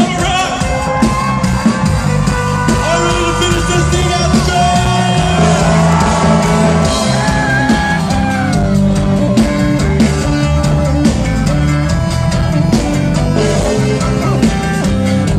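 Reggae-rock band playing live and loud through a festival PA, with a heavy bass line, steady drum beat and sustained melodic lines, heard from within the crowd.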